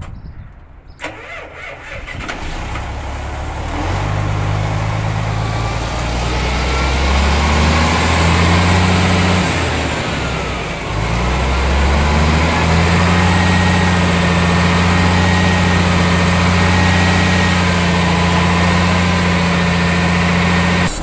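A heavy truck's diesel engine is cranked and started, catching about four seconds in, then idling. Its pitch rises and falls briefly around the middle before it settles to a steady idle.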